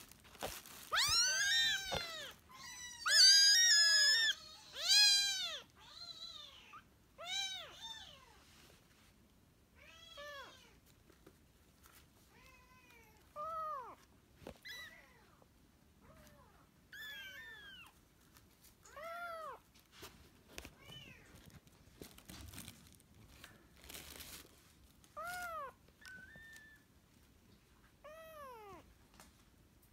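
Several young kittens mewing: high, arching mews that crowd and overlap loudly in the first several seconds, then come singly every second or few.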